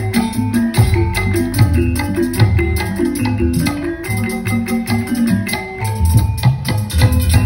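Upbeat dance music with a strong bass beat and busy percussion, played over stage loudspeakers.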